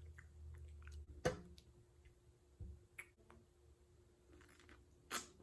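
Close-miked eating of pineapple: a few separate wet mouth smacks and clicks, the loudest about a second in and another near the end.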